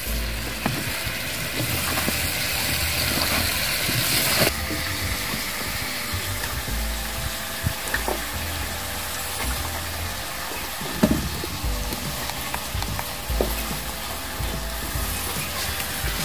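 Chicken frying and sizzling in a metal pan over a wood fire as chunks of guyabano are dropped in by hand, with a few light knocks from the pan and utensils.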